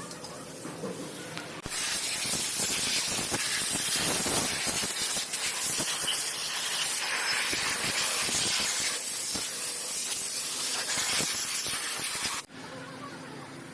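A loud, steady hiss from a pressurised jet, starting suddenly about two seconds in and cutting off sharply near the end, with small clicks scattered through it.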